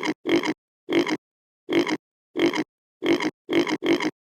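Pig grunting: a series of short oinks, about two a second, with silence between them.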